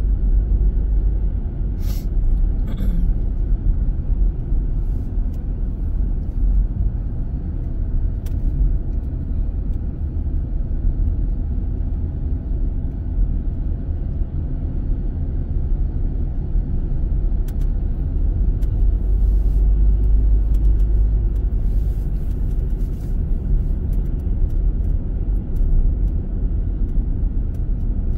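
Steady low rumble of a car's engine and tyres heard from inside the cabin while driving, with a few brief clicks and knocks along the way.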